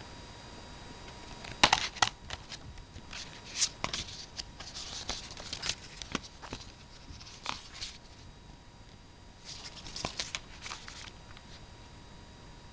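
Paper pages of a comic book being handled and turned: scattered rustles and crisp clicks, loudest about two seconds in, with another flurry near the end.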